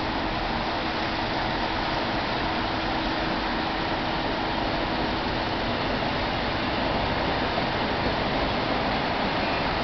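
A train of five coupled ALn 668 diesel railcars pulling away, heard from afar as a steady, even rumbling noise, with a faint hum that fades about four seconds in.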